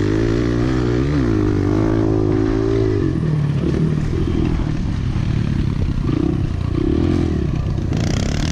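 Kawasaki pit bike's four-stroke single running under throttle at a steady note, dipping briefly about a second in. About three seconds in the throttle is eased off and the engine drops to a lower, uneven note with a few short rises as the bike slows.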